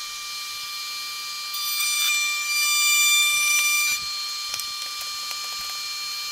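Table-mounted router with a large straight bit running at full speed, a steady high whine. From about a second and a half in it gets louder and rougher as the bit cuts a profile into the top edge of a drawer side being pushed through. About four seconds in it drops back to the plain running whine.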